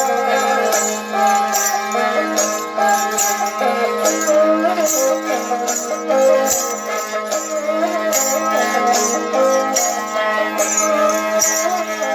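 Rajasthani folk instrumental passage: a ravanhattha (bowed folk fiddle) plays a wavering melody over steady droning strings, with rhythmic jingling from bells.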